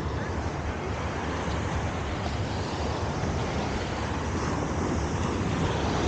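Wind rumbling on the microphone over the steady wash of surf breaking on a sandy shore, growing a little louder near the end.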